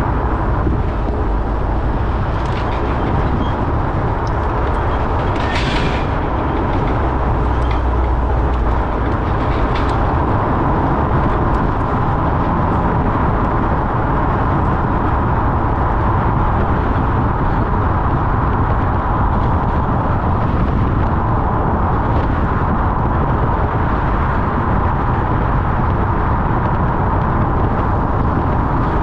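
Honda Civic Type R FL5 driving, a steady low rumble of road and drivetrain noise, with a few brief sharp sounds in the first ten seconds.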